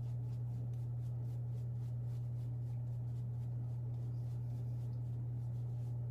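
Shaving brush working lather over three-day stubble, a soft scratchy brushing repeated several times a second, over a steady low hum.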